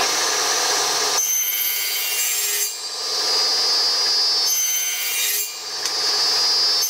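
Table saw running and cutting a groove into small wooden blocks: a steady high whine with loud cutting noise that changes every second or two as blocks are fed over the blade.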